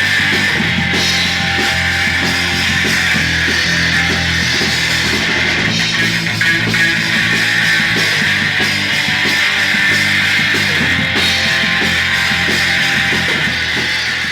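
Rock band music: loud, distorted electric guitars with bass and drums playing a steady punk-rock song, fading out near the end.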